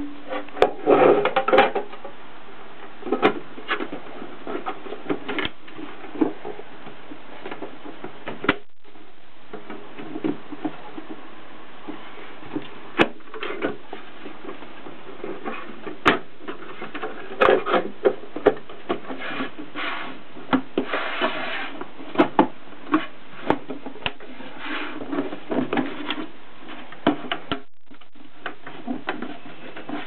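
Gossen Tippa portable typewriter and its hard case being handled: irregular clicks and knocks with stretches of rubbing, over a steady hiss.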